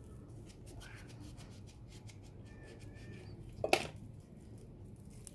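Hands working salt into cut lemons and packing them into a jar: soft rubbing and small clicks, with one sharp knock about three and a half seconds in.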